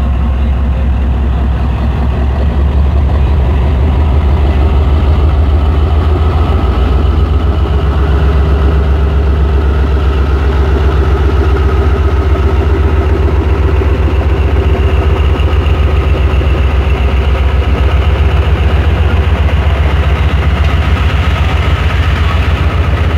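ZCU-30 diesel-electric locomotive pulling a departing passenger train, with a steady, loud, low diesel drone that grows louder a few seconds in and carries on as the locomotive moves off and the power van rolls past.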